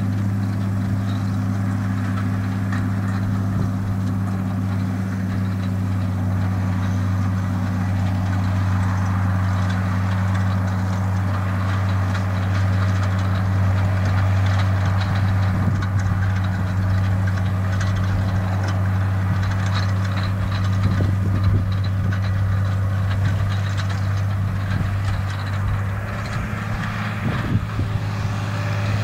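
Fiat 110-90 tractor's turbocharged six-cylinder diesel engine running steadily under load as it pulls a Krone Turbo 4000 loader wagon, with rattling and clatter from the wagon's pickup gathering grass.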